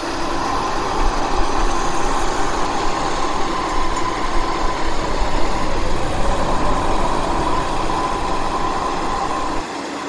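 Heavy diesel machinery of a concrete mixer truck and concrete pump running steadily during a concrete pour: a continuous rumble with a constant hum over it.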